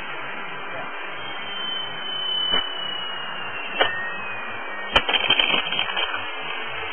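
Distant RC plane's propeller and motor whine, a faint tone falling in pitch as the plane passes, over a steady hiss. A couple of sharp clicks, then a short burst of crackling about five seconds in.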